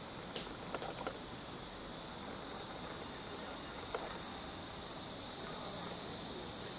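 Steady high-pitched background hiss, with a few faint clicks near the start and another about four seconds in.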